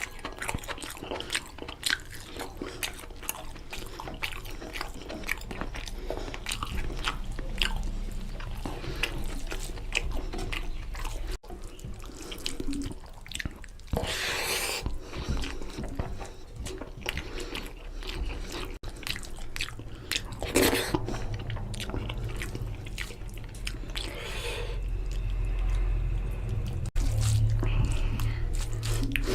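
Close-up eating sounds of mutton curry and rice: chewing with many small wet mouth clicks, and two louder noisy moments about a third and two thirds of the way through.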